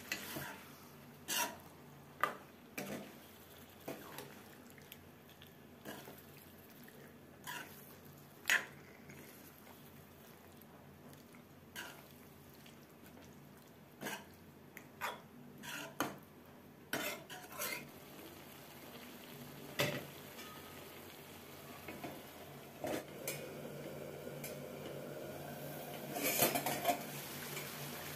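Metal spatula clinking and scraping against a metal kadai while chicken masala is stirred, in irregular knocks a second or two apart, coming thicker near the end.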